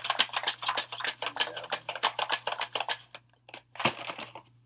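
Fast run of light taps and clicks, about eight a second, from fingers handling cardboard COVID rapid test cards. The run stops about three seconds in, leaving a couple of single clicks.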